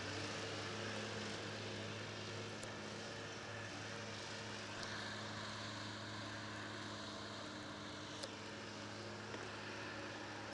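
Engine running steadily at an unchanging pitch, with a few faint ticks over it.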